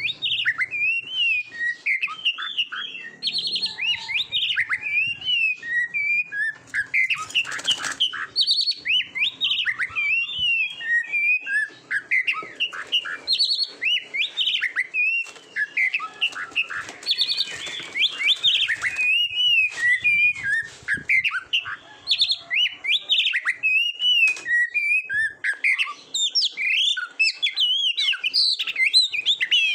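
Oriental magpie-robin (kacer) singing without pause: a fast, varied run of clear whistled notes, slurs and trills, broken by harsh scratchy bursts about 8 seconds in and again around 17 to 19 seconds.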